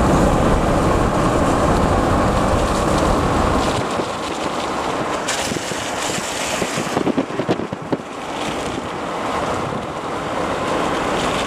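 Wind buffeting the microphone over a steady rush of rain. The low rumble of the gusts drops away about four seconds in, and a few sharp taps come about seven seconds in.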